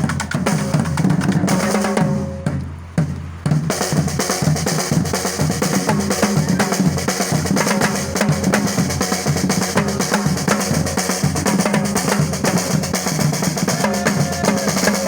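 Music with a busy drum beat and a melody over it; it thins out briefly about two seconds in, then comes back in full.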